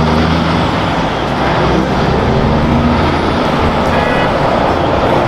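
Truck engine running steadily: a constant low drone with a noisy hiss over it.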